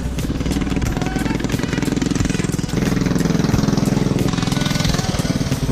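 Small engine of a homemade minibike running, with a fast, even chugging pulse and a slight rise in level about three seconds in.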